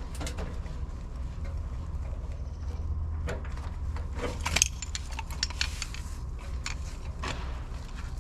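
Scattered metal clinks and clanks from working the sawmill trailer's leveling jacks and tongue, the loudest clank about four and a half seconds in, over a steady low rumble.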